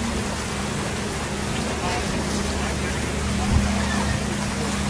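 Storm wind and waves make a dense, steady rushing noise, with a boat engine's steady low hum underneath.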